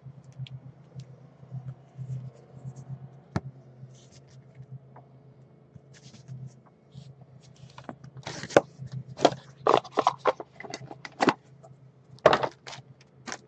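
Card box packaging being handled and opened: a sharp click about three seconds in, then from about eight seconds a rapid run of loud snaps, scrapes and tearing. A steady low hum sits underneath.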